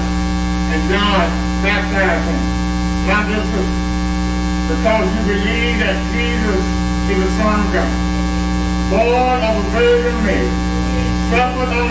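Loud, steady electrical mains hum on the recording, with faint, indistinct voices rising over it a few times.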